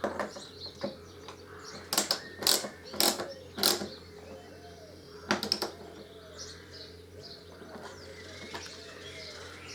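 Several sharp metallic clicks and knocks from a wrench working on a screen-mounting fastening as it is tightened. Four come close together about two to four seconds in. Birds chirp faintly in the second half.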